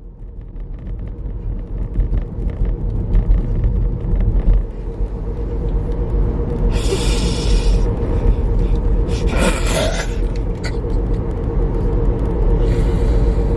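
Car cabin road noise while driving: a steady low rumble with a constant hum. Three short hissing bursts break through it, about 7, 9.5 and 13 seconds in.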